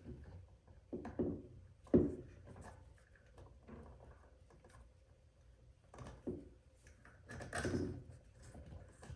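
Scattered knocks and handling noises of hands working wire connections and a light switch in an electrical wall box, with a cluster of rustling and knocking near the end.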